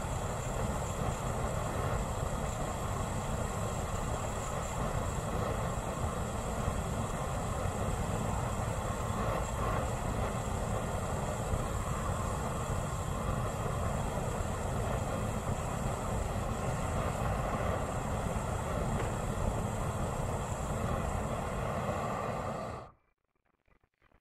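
Propane weed burner rigged as a flamethrower, burning liquid propane and jetting flame with a steady rushing roar. The sound cuts off suddenly about a second before the end.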